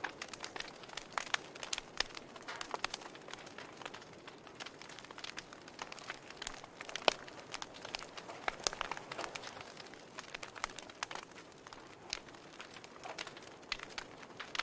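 Wood fire in a fireplace crackling, with irregular snaps and pops over a soft hiss. One sharper pop comes about seven seconds in.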